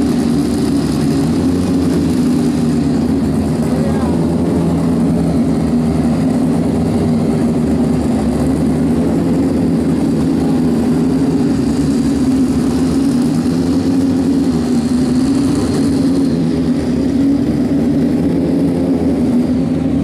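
Engines running as a steady, loud drone whose pitch wavers slowly.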